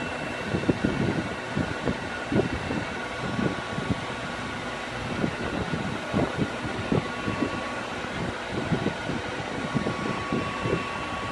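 Electric heat gun blowing steadily as it dries liquid vinyl on a seat cover, a fan-like hiss with a faint steady whine. Irregular light knocks come from handling.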